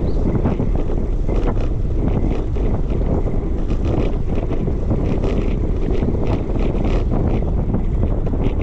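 Wind buffeting the microphone while cycling: a loud, steady low rumble, with many small irregular clicks and rattles.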